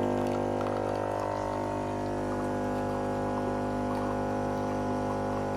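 Nespresso Gemini CS203 coffee machine's pump running steadily as it dispenses coffee on both sides, a constant hum with liquid running into the cups.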